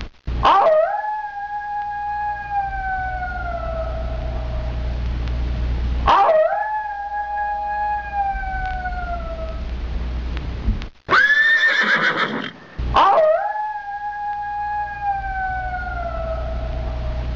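Canine howling: a long howl that rises, then holds and slowly sinks, repeated three times about six seconds apart over a steady low hum. Between the second and third howls comes a shorter, louder cry.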